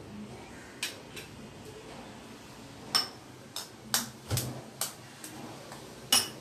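Eggs being cracked into a glass bowl: a string of sharp taps and clicks of eggshell against the bowl's rim and a steel spoon, the loudest about three seconds in and near the end, the last with a short high ring.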